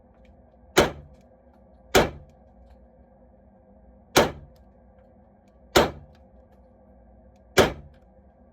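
Airsoft Beretta M9 pistol firing five single shots at uneven intervals, each a sharp crack that dies away quickly.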